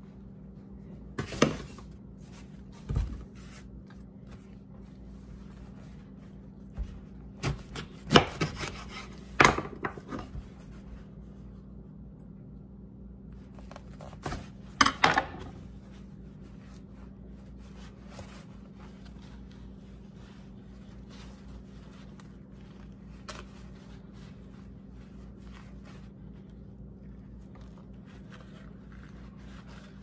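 Chef's knife cutting the base off a cooked corn cob on a wooden cutting board: a few sharp knocks of the blade on the board, most in the first half, then only faint rustling of the husk over a steady low hum.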